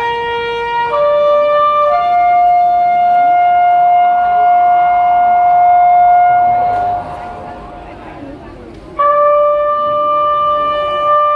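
Long held horn-like notes played over the show's loudspeakers: a short note, a step up to one note held for about five seconds, a break around seven seconds in, then another held note near the end.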